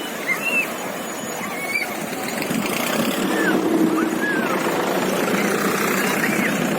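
Waterfall rushing steadily, with a handful of short, high, arching chirps or squeals heard over the roar.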